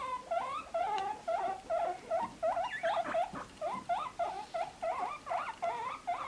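A guinea pig squeaking over and over in a steady run of short, rising squeaks, about three a second.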